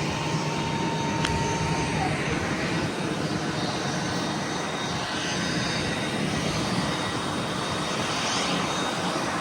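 Steady rushing noise of jet airliner engines, with a thin steady tone for the first couple of seconds and a single sharp click about a second in.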